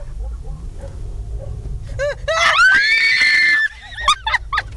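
A high-pitched human scream starting about two seconds in and held for about a second and a half, with short yelps just before and after it, over the low steady rumble of a car.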